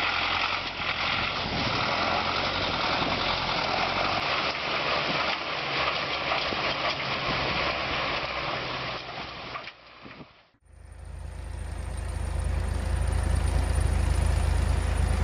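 Heavy off-road truck running, a dense rough engine and vehicle noise. About ten seconds in it cuts off suddenly, and a different clip follows with a deep, steady low engine rumble.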